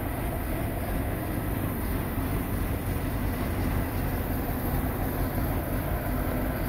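Diesel engine of a KrAZ 6x6 truck idling steadily.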